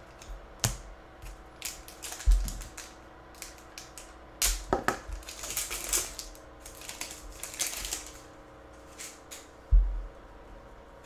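Foil wrapper of a football card pack being crinkled and torn open by hand: a run of crackles and clicks. There are two dull thumps, about two seconds in and near the end.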